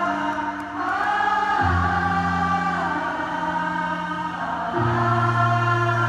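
Concert crowd singing along with many voices over a live band's sustained chords, the bass note changing about a second and a half in and again near the end.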